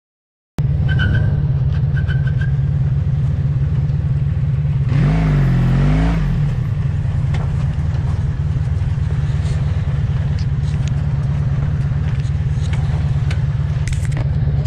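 Motorcycle engine running at low speed, a steady low drone that cuts in after a brief silence. About five seconds in the engine is revved, its pitch rising and falling for a second or so before settling back.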